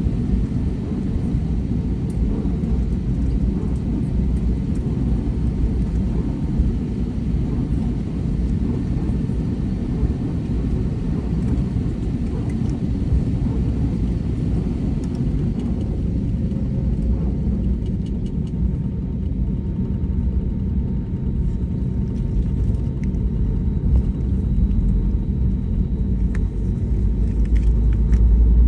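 Steady low rumble of an Airbus A320neo airliner, with faint steady tones above it, growing louder in the last couple of seconds.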